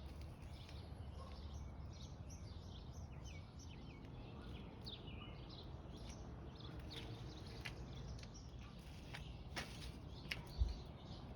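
Songbirds chirping and calling over low outdoor background noise, with a single dull thump near the end.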